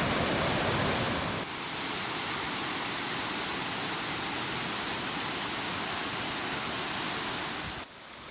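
Waterfall water falling and splashing: a steady, even rush. It steps down a little about a second and a half in and cuts off abruptly near the end.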